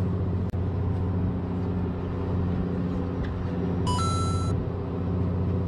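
Fishing boat's machinery running with a steady low hum, with a brief high tone about four seconds in.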